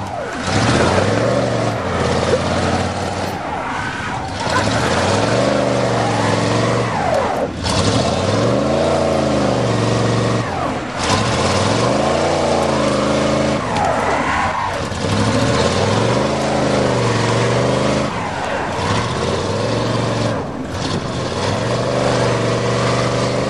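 Two vehicle engines, a Dodge Caravan's and a Chevrolet pickup's V8, working hard against each other under load in a tug of war. Both rev up and down again and again, their pitches rising and falling and overlapping.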